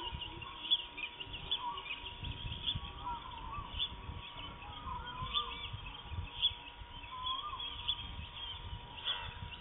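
Wild birds calling: a dense run of high, quick chirps with a few lower whistled calls that rise and fall, over a low rumble and a faint steady high tone.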